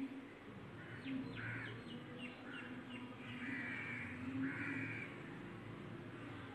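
Crows cawing in the background, three harsh caws about one, three and a half, and four and a half seconds in, over a faint low steady hum.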